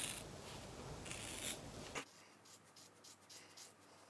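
Craft scissors cutting through a thick ponytail of hair, a noisy cutting sound for about two seconds that stops abruptly, leaving only faint ticks.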